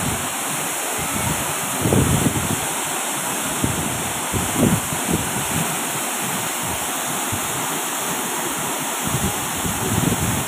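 Waterfall rushing in a steady roar of falling water, with wind buffeting the microphone in low rumbling bumps.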